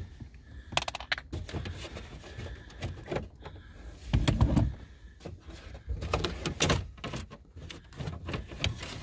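Hard plastic dash pad of a Jeep Cherokee XJ being wiggled and lifted loose by hand: irregular clicks, knocks and creaks, with a couple of duller thumps about four and seven seconds in.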